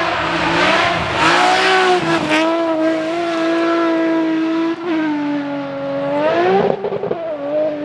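BMW rally car engine running hard at high revs, its pitch dipping and climbing again a few times as it changes gear or lifts off, with a short rough, crackling patch near the end.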